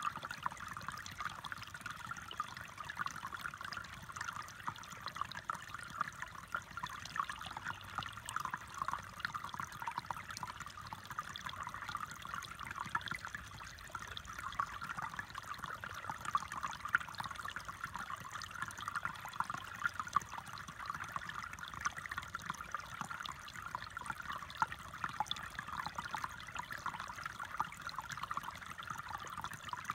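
Shallow woodland creek trickling steadily over stones.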